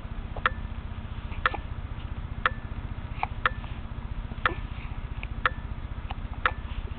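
A clock ticking steadily once a second, with a few fainter, irregular clicks in between.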